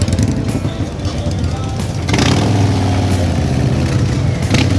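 Custom bagger motorcycles' V-twin engines running as the bikes are ridden slowly in, getting louder about two seconds in, with music and voices mixed in.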